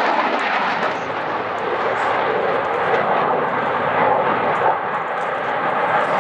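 MiG-29 fighter's twin Klimov RD-33 turbofans during a flying display: a steady, loud rushing jet noise with no clear pitch.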